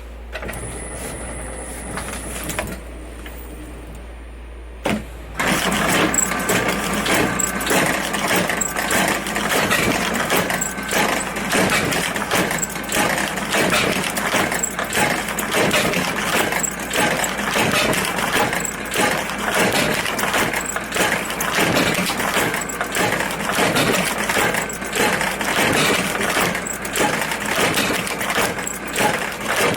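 Hope tatami sewing machine stitching a tatami mat. A quieter stretch with a faint steady whine gives way, about five seconds in, to a loud, fast, even clatter of needle strokes that runs on.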